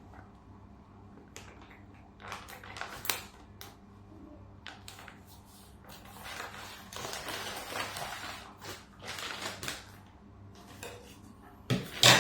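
Packaging of a delivered shoe parcel being handled: scattered clicks and crinkling, busiest in the second half, with a sharp knock near the end.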